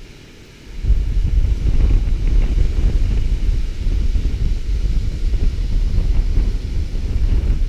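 Strong wind buffeting a GoPro Hero4 Black's microphone: a heavy, gusting low rumble that returns suddenly about a second in after a brief lull, over a fainter hiss of surf breaking on the rocks below.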